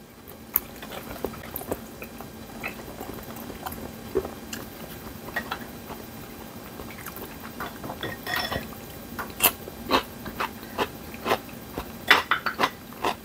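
A man chewing and eating boiled pork, with wet mouth sounds and scattered short clicks of chopsticks and a spoon against porcelain bowls, more frequent near the end.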